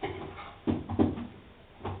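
A few sharp knocks and clatters, about four in two seconds, the loudest about a second in.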